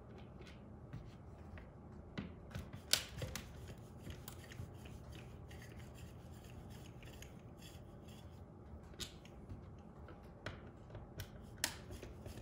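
Hand screwdriver working the small screws of a plastic pet-door frame: scattered small clicks and scraping of the bit on the screws and plastic, with a sharper click about three seconds in and another near the end.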